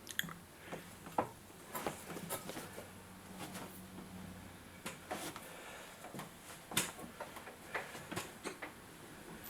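Faint, irregular small clicks and knocks, a few a second, over a quiet room, with a low hum in the first few seconds.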